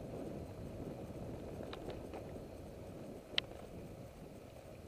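Bicycle tyres rolling over an unpaved dirt and gravel road, a steady low rumble with a few small clicks just before the middle and one sharper click a little past it.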